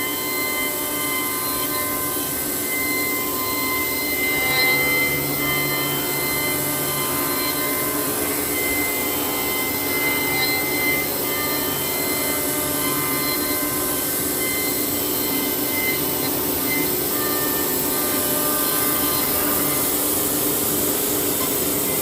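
Woodworking 5-axis CNC machining center running: a steady high whine over a constant hiss, with a low hum joining for several seconds near the start.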